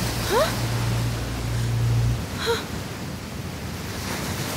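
Ocean surf and wind hiss on a beach, with a low steady hum that cuts off about two seconds in. A short breath or gasp is heard near the middle.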